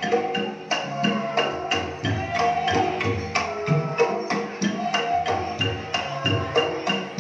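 Dance accompaniment music in a steady rhythm, led by hand drums and struck tuned percussion.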